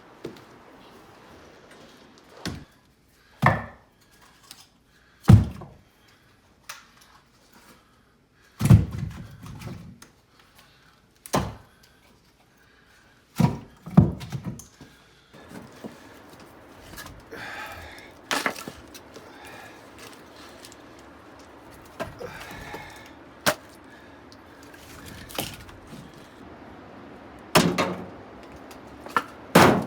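Split firewood pieces knocking against one another as they are handled and stacked: a dozen or so irregular wooden thunks, with softer scraping and shuffling between them.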